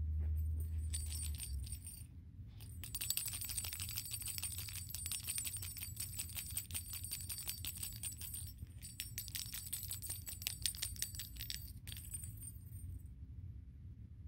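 Small bell in a kitten's cat toy jingling in rapid, irregular shakes as kittens play with it. It starts about three seconds in, breaks briefly, and stops a little before the end.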